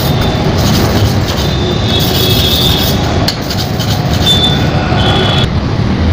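Steel hand-plane iron rubbed back and forth on a sharpening stone. It makes a continuous scraping with a thin, high squeal in places, and the strokes stop shortly before the end. These are the honing strokes that bring the blade to a sharp edge.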